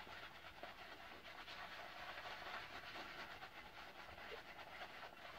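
Faint soft swishing and crackling of a shaving brush working shaving cream into a lather on the face, many small irregular brush strokes.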